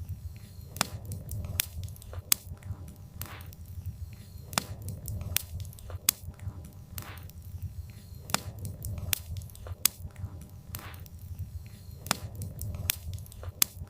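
Wood fire burning, its logs giving irregular sharp crackles and pops over a low, steady rumble of the flames.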